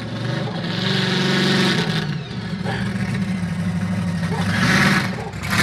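Monster truck engine running and revving, its pitch rising and falling, with louder surges about a second in and again near the end.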